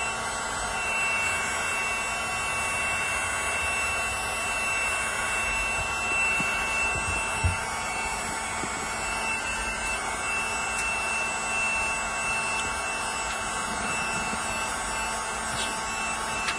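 Cordless battery-powered hot air gun running steadily, its fan blowing air with a constant rush and a steady high whine.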